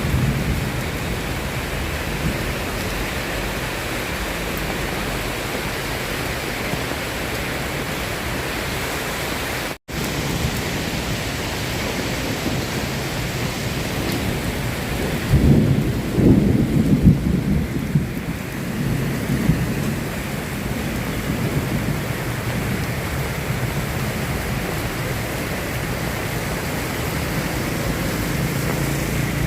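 Steady rain falling, with a low rumble of thunder rolling in about halfway through and lasting several seconds. About a third of the way in, the sound cuts out for an instant.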